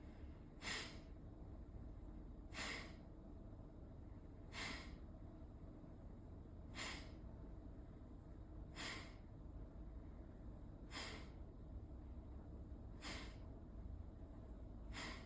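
Kapalabhati yoga breathing: short, forceful exhalations driven by the abdominal muscles, each followed by a quiet passive inhale, about one breath every two seconds, eight in all.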